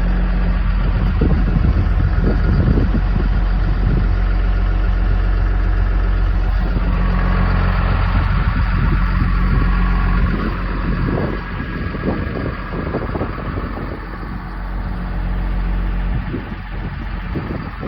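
Heavy diesel engine of snow-clearing farm machinery running steadily, dropping somewhat in level about ten seconds in.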